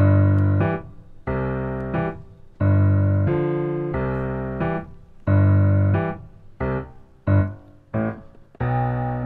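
Background music: a piano-toned keyboard playing a bouncy run of chords, each struck and then fading, a new one about every two-thirds of a second.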